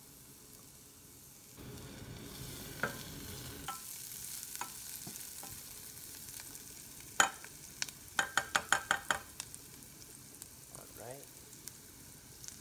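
Diced red onion sizzling in hot oil in a small nonstick saucepan while a utensil stirs it. The sizzle swells about one and a half seconds in. About seven seconds in comes one sharp knock, then a quick run of about eight taps of the utensil against the pan.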